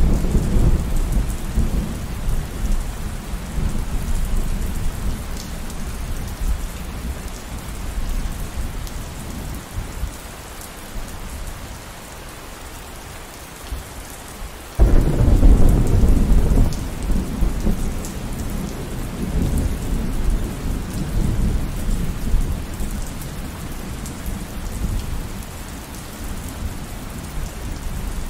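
Steady rainfall with thunder. A low rumble fades over the first several seconds, then a sudden loud thunderclap about halfway through rumbles on and slowly dies away under the rain.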